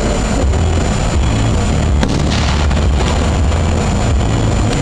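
Aerial fireworks going off. A sharp bang comes about two seconds in, followed by a brief crackling hiss, over a continuous low rumble.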